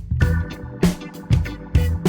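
Background music with a steady beat: drums, bass and organ-like chords.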